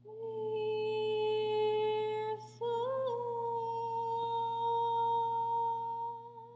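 A woman singing unaccompanied, holding one long steady note, breaking off briefly about two and a half seconds in, then holding a slightly higher note that swells, settles and ends in vibrato as it fades.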